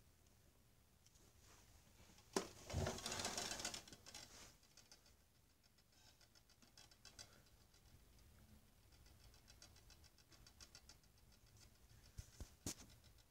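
Faint handling noise of objects on carpet: a sharp click, then a louder scratchy rustle for about two seconds, followed by quiet rapid ticking and scraping and a few sharp clicks near the end.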